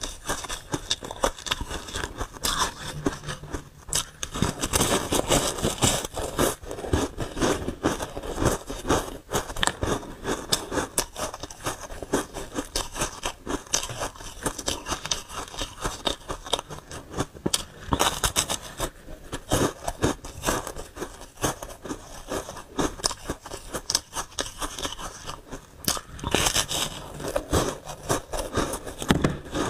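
Close-miked biting and chewing of frozen foam ice, a steady run of dense crackly crunches with a few louder clusters as fresh bites break off.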